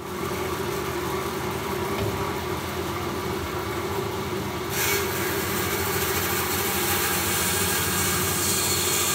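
Bandsaw running with a steady hum while its blade cuts into a mower wheel's solid rubber tire, chamfering the square edges of the tread. About five seconds in, a hissier cutting sound joins the motor hum as the blade bites into the rubber.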